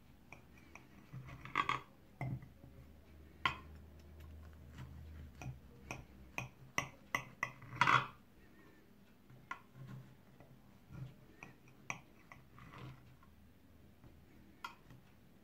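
Knife slicing a baked semolina cake in a glass baking dish, the blade giving irregular light clicks and taps against the glass as it cuts, with a quick run of them about six to eight seconds in.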